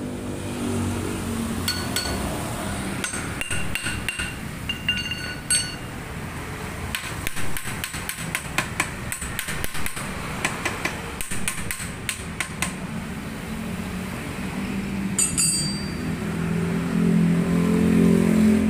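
Hammer blows on metal tools at the crankshaft pulley of a Toyota Corolla 1.8 engine as the pulley is worked loose. Each strike rings. There are scattered blows at first, then a quick run of blows from about seven to twelve seconds in, and a few more later.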